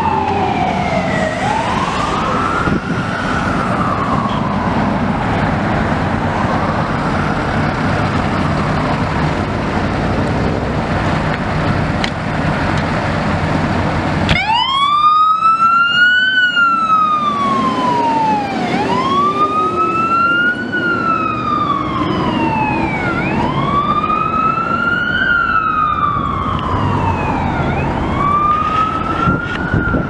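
An E-One ladder truck's siren wailing up and down over its engine's rumble, growing fainter as it pulls away. About halfway through it gives way to a 2015 Spartan Metrostar fire engine's PA4000 electronic siren wailing loud and close, rising and falling about every four and a half seconds.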